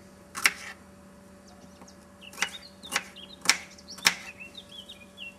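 A kitchen knife knocking on a wooden cutting board while vegetables are cut: five sharp strikes, one about half a second in and four more close together in the second half. A small bird chirps in the background from about two seconds in.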